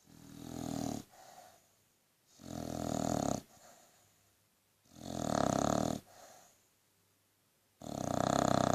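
Australian Bulldog snoring: four loud snores about two and a half seconds apart, each followed by a short, softer breath.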